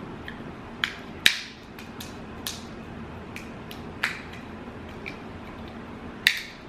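Snow crab leg shell being cracked open: about six sharp cracks at uneven intervals, the loudest about a second in and again near the end.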